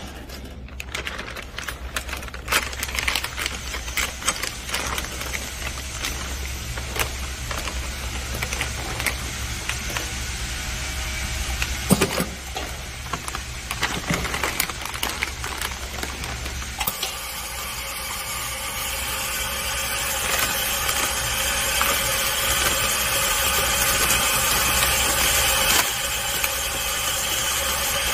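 Nylon vacuum bag crinkling and crackling as it is handled around aluminium cylinders, over a steady low hum. About 17 seconds in, the nozzle-type vacuum packaging machine starts drawing the air out with a steady whining hiss that grows louder as the bag is evacuated, easing slightly near the end.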